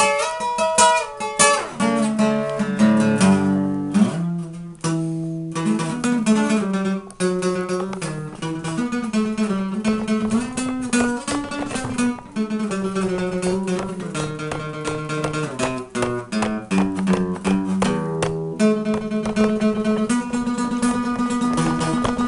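Steel-string acoustic guitar played with a pick: a quick run of picked notes and strummed chords, with a moving bass line.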